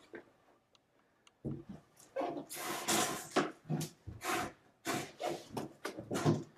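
Packaging being handled as a boxed desktop PC is unwrapped: a few light clicks, then about a second and a half in, loud irregular rustling and crinkling that comes and goes.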